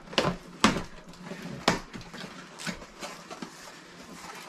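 Glued cardboard box flaps being pried and pulled apart by hand: a few sharp cracks and crackles of the cardboard, loudest in the first two seconds, between softer rustling.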